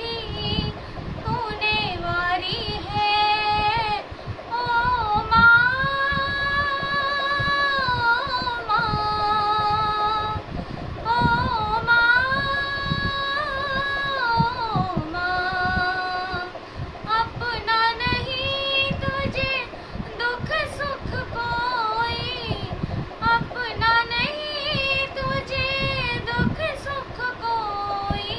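A girl singing a song solo, with long held notes that slide and waver in pitch between short breaths.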